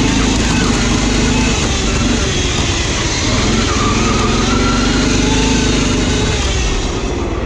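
Riding lawn mower's small engine running steadily under way, close and loud, its pitch wavering and dipping slightly now and then.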